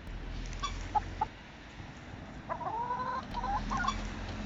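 Domestic hens with a cold calling and clucking: a few short calls, then one longer, drawn-out call about two and a half seconds in, followed by more short clucks. These are the strange sounds the sick birds make.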